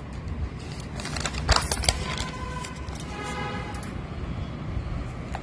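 Notebook page being turned by hand: paper rustling and crackling in a quick cluster, loudest about a second and a half in. A faint pitched tone follows in the background for a couple of seconds, over a steady low rumble.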